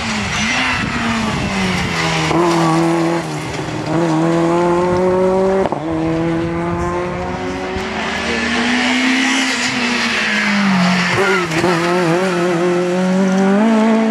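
Rally cars' engines at full throttle accelerating away: each engine note climbs and then drops abruptly at an upshift, several times in a row, with a second car coming through near the end.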